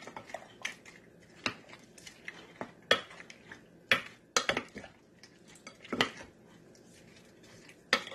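Wooden spoon stirring raw shrimp in a glass bowl, knocking sharply against the glass at irregular beats about once a second.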